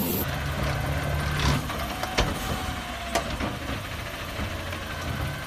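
Automated side-loader garbage truck running steadily while its hydraulic arm grabs and lifts a wheeled trash cart, with two sharp knocks about a second apart midway.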